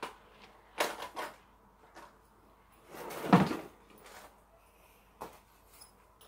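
Scattered clicks and knocks from hard objects being handled and set down, in a cluster about a second in. The loudest is a heavier knock about three and a half seconds in.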